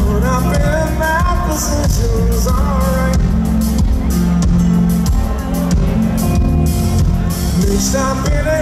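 Live pop-rock band playing, with a man singing lead vocals over drums, bass and keyboards. His sung phrases come in early and again near the end, with the band carrying on alone in between.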